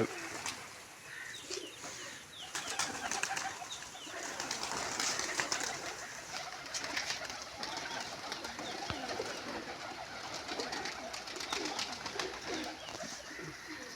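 Domestic pigeons cooing, several birds calling over one another, with scattered sharp clicks and rustles among them.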